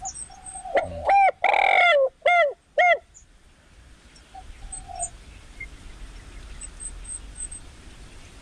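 Recorded dove call played loudly through a small Bluetooth speaker as a lure for wild doves: a short coo, a long falling coo and two more short coos about a second in, then a pause before the loop comes round again.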